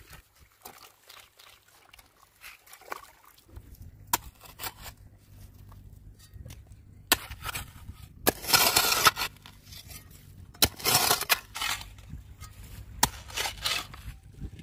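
A hoe digging into wet riverbank sand and mud: two heavy scraping strokes of about a second each, around eight and ten and a half seconds in, with sharper knocks of the blade between.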